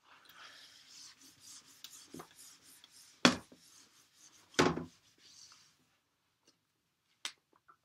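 A dry-erase whiteboard being wiped clean with an eraser: a scratchy rubbing swish in repeated strokes, with two loud knocks partway through. The wiping stops after about six seconds, and a single click follows near the end.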